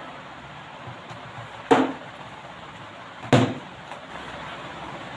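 Two sharp knocks about a second and a half apart: a plastic cricket bat hitting a ball.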